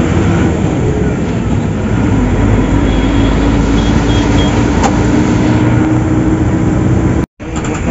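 Bus engine running with road noise while the bus is moving, heard from inside the cabin, with a steady engine hum. The sound cuts out for a split second near the end.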